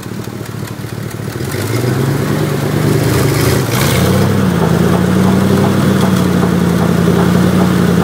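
Original V8 engine of an antique WWII high-pressure torpedo/dive compressor unit running, heard at its twin exhaust mufflers; its pitch rises over a few seconds from about a second and a half in, then holds steady.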